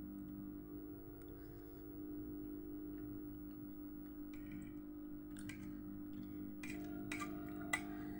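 Eating sounds: soft clicks and scrapes, probably a spoon against a plate, growing busier in the last few seconds with one sharper click near the end, over a steady low hum.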